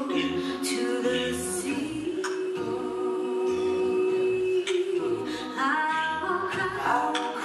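Five-voice a cappella vocal band, a woman and four men, singing live into microphones: close harmony with held chords and shifting notes, no instruments.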